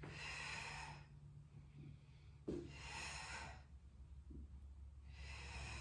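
A woman breathing audibly in a slow, paced rhythm, inhaling for half of a leg circle and exhaling for the other half: three soft breaths about two and a half seconds apart, each lasting about a second.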